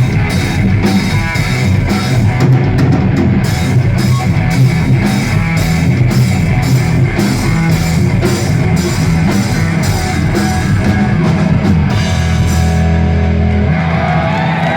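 Live heavy rock instrumental: distorted electric guitar over a pounding drum kit. Near the end the drum hits stop and a held guitar chord rings on, the close of the song.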